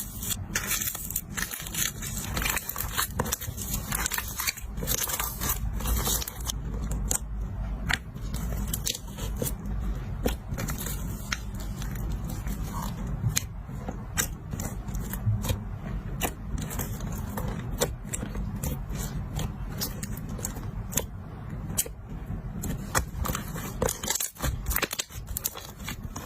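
Slime being squished and worked, giving a dense, continuous run of small crackles, clicking pops and sticky scraping sounds.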